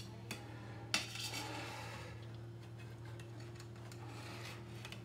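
Two light clinks of metal kitchenware about half a second apart in the first second, then a little handling noise, over a steady low hum.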